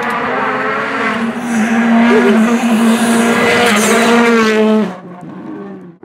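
Rally car engine running at high revs, its pitch held nearly level with small dips, getting louder about a second and a half in and cutting off suddenly about five seconds in.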